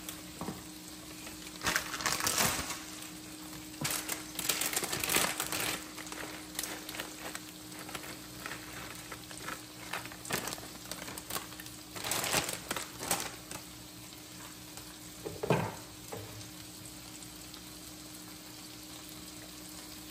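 Alfredo sauce sizzling in a skillet over a steady low hum, broken by irregular bursts of rustling and scraping as shredded cheese is shaken in from a plastic container and stirred in with a spatula. There is a short clunk near the end.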